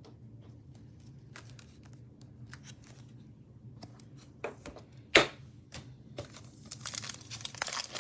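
Trading cards being handled and flicked through, with light scattered clicks and one sharp snap about five seconds in. Near the end a card pack's wrapper crinkles and tears as it is ripped open.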